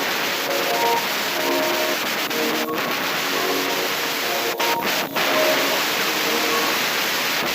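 Background music: a melody of short notes over a steady hiss.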